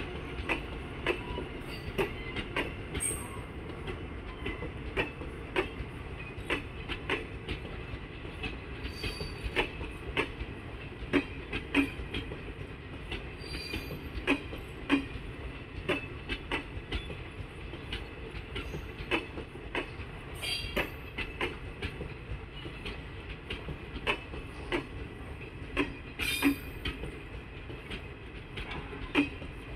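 ICF passenger coaches rolling slowly past, their wheels knocking and clacking irregularly over the rail joints above a steady low rumble, with short wheel squeals here and there.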